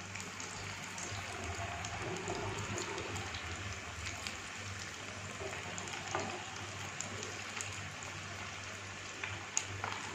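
Sabudana vadas deep-frying in hot oil: a steady sizzle with scattered crackling pops, and one sharp knock near the end.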